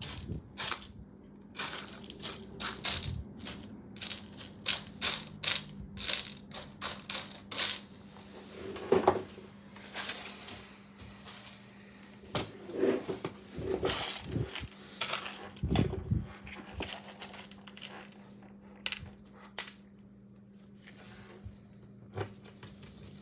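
Loose small metal screws clinking and rattling in a plastic bin as a gloved hand sifts through them. A quick run of sharp clicks fills the first several seconds, then comes a spell of heavier knocks, and the clicks thin out toward the end.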